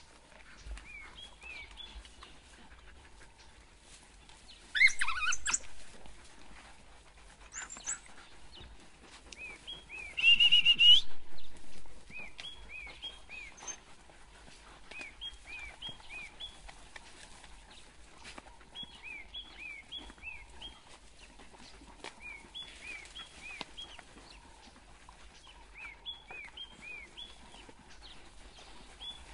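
African wild dogs twittering at a kill: short, high, bird-like chirps in quick little clusters, over and over. Two louder high sounds stand out, a brief rising call about five seconds in and a longer rising tone about ten seconds in.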